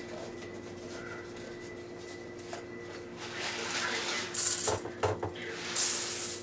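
Dry instant brown rice rustling in its cardboard box and pouring out into a small plastic measuring cup, starting about halfway through, with a couple of light knocks of the box.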